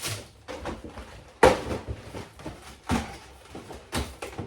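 Groceries being put away in a kitchen: a few knocks and clunks of items and containers being set down and shelves or drawers being moved, the loudest about a second and a half in.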